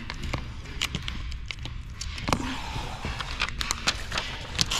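Handling noises of window tint film being worked and trimmed with a knife and hard card: scattered light clicks, taps and rustles, with a brief scratchy hiss about three seconds in.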